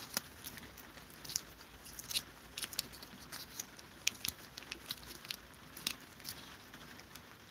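Cats licking lickable paste treat from squeeze tubes: irregular quick wet clicks and smacks of their tongues, a few a second.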